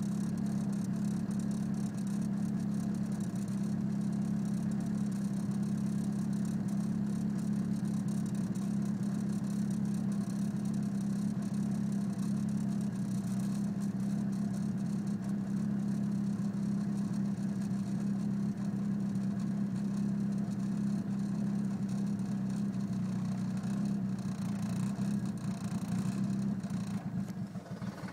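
Car engine idling steadily, running with a misfire: the owner reports a random-misfire code (P0300) after installing a new intake manifold.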